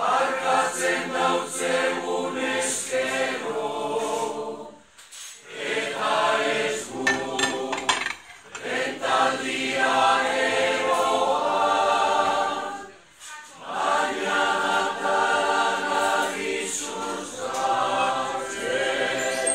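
A choir singing a cappella in long sung phrases, broken by brief pauses about five, eight and thirteen seconds in.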